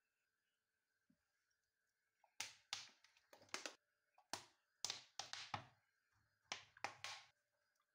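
About a dozen short, sharp clicks and splats in quick groups: chilli sauce squeezed and spluttering from a plastic squeeze bottle onto raw chicken wings in a steel bowl.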